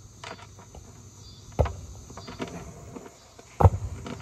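Steady chirring of insects such as crickets, broken by two heavy thumps, one about a second and a half in and a louder one near the end.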